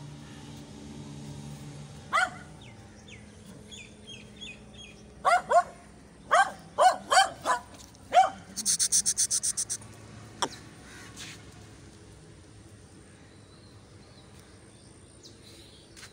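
Short, loud animal calls, one about two seconds in and then about eight in quick succession, each dropping slightly in pitch. They are followed by a fast run of about ten high chirps over roughly a second.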